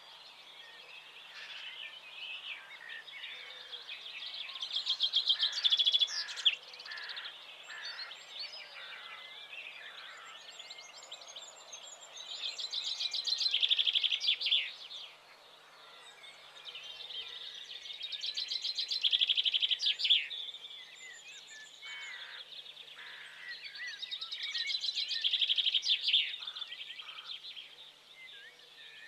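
A bird singing. Its phrases of rapid high chirps swell in loudness and break off, four times about every six seconds, with softer chirping between them.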